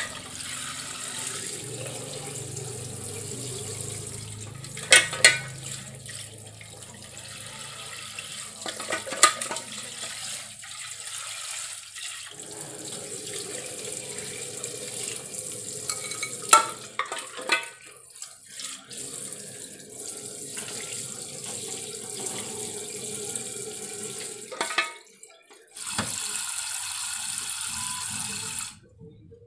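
Kitchen spray tap running into a stainless steel pot of meat in a steel sink, water splashing and being poured off, with a few sharp knocks of the pot against the sink. The running water stops just before the end.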